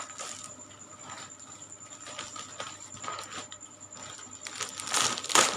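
Scattered light taps and rustles of a gift and its packaging being handled and unwrapped, with a sharper knock about five seconds in.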